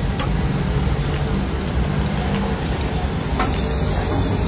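Eggs and spices frying in oil on a large flat griddle (tawa), a steady sizzle over a low rumble, with a sharp tap about a quarter second in and another about three and a half seconds in.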